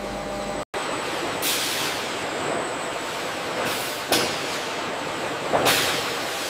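Steady industrial din of tire conveyor lines running, with about four short, sharp hisses like compressed-air releases from pneumatic units. The noise breaks off for an instant just under a second in.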